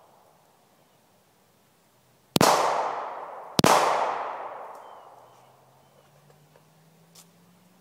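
Two shots from a Glock 23 .40 S&W pistol, a little over a second apart, each with a long echoing tail that fades over a second or two.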